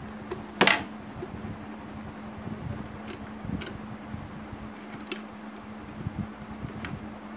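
Sharp clicks and taps of a screwdriver working the screws out of an electric kettle's plastic base: five separate clicks, the loudest about half a second in. A steady low hum runs underneath.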